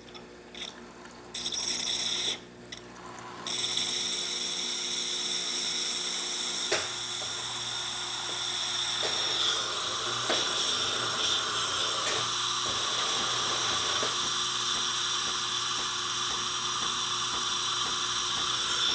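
Breville Barista Express steam wand hissing steadily after opening about three and a half seconds in, a short burst of hiss coming first; a low hum joins about seven seconds in. The steam pressure is building properly, with a new steam wand tip and a new three-way solenoid valve and gasket fitted.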